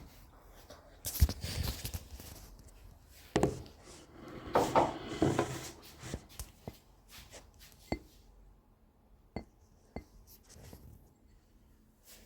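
Kitchenware being handled: scattered light knocks and clinks, with a short stretch of rustling and handling about four to five seconds in.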